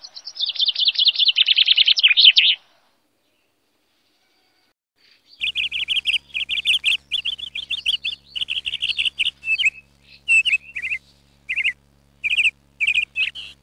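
Small birds chirping: a fast trilled run for about two and a half seconds, then, after a pause of a few seconds, a string of short chirped phrases to the end, with a faint low hum beneath the second part.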